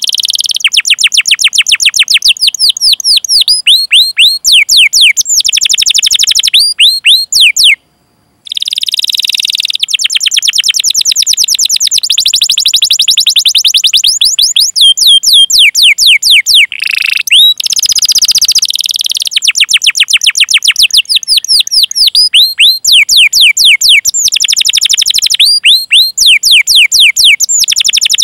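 Domestic canary singing loudly in long rolls of rapid, high, downward-sweeping chirps, one trill running straight into the next. The song breaks off briefly about eight seconds in, and a short held whistle comes near the middle.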